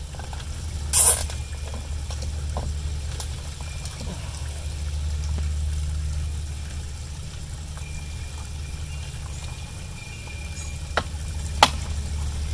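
A steady low rumble, with hands handling a plastic outdoor Wi-Fi antenna on its pole mount: a short scrape about a second in and a sharp click near the end.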